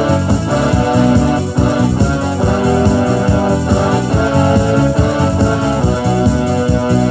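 Electronic keyboard playing a slow gospel hymn in sustained, organ-like chords over a moving bass line.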